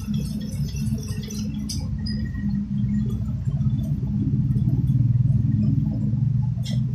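Steady low mechanical hum of an LPG cylinder-filling rig running, growing louder over the last few seconds, with light metallic clicks from the valve and fittings in the first two seconds and a sharp click near the end as the hum begins to die away.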